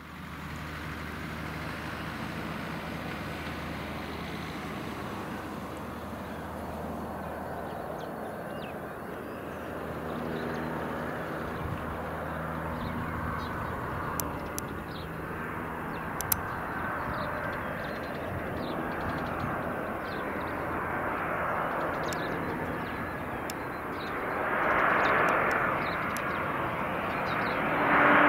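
Embraer 190 airliner on final approach, its two General Electric CF34 turbofans giving a steady jet hum and whine that grows louder as the aircraft closes in, loudest near the end.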